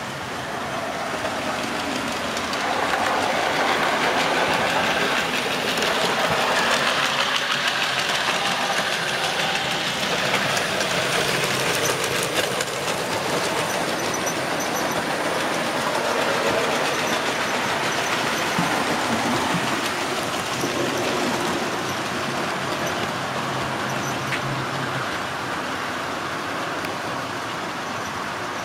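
Model trains running on the layout track: small electric motors whirring and wheels rolling along the rails, a steady running noise with no breaks.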